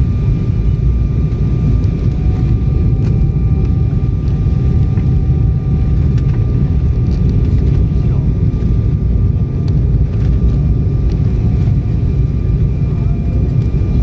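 Jet airliner cabin noise during the descent to land: a loud, steady low rumble of engines and airflow, with faint steady whining tones above it and a few light clicks.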